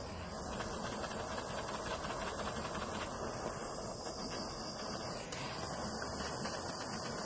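Handheld butane jet torch hissing steadily as its flame is played over heat-shrink crimp terminals to shrink them onto the wire.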